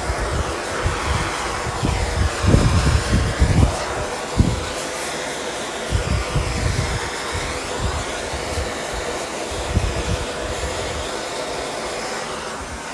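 Handheld gas torch with a trigger-start head burning steadily against bare steel as it heats the panel for lead loading: a constant hiss that shifts in tone as the torch moves, with irregular low rumbles that are strongest about two to four seconds in.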